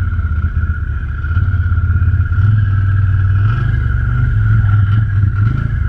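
ATV engine running while riding, with a steady high whine over the low engine drone; the engine pulls harder about two seconds in.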